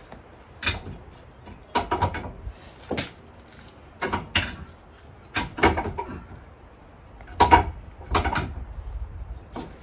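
A string of irregular knocks and clunks, about a dozen, each with a short ring, as of hard objects being handled and set down.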